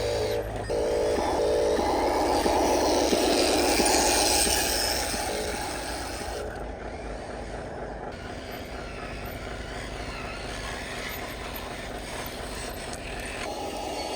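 Radio-controlled model truck driving, its electric drive and tyres on rough ground making a grainy rumble. It is louder for the first few seconds, then settles to a steadier, quieter run.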